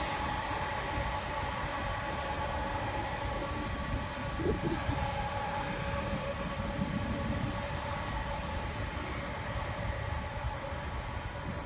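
Boeing 747 Dreamlifter's turbofan engines at low taxi power: a steady whine with several held tones over a low rumble. Wind buffets the microphone.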